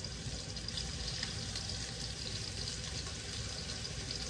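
Chicken breasts searing in hot avocado oil in a skillet: a steady sizzle.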